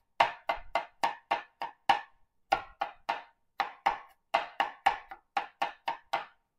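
Santoku knife mincing garlic on a cutting board with rubber feet: a steady run of really loud, sharp knocks about three a second, with a short break about two seconds in. The board's loudness is probably down to its rubber feet.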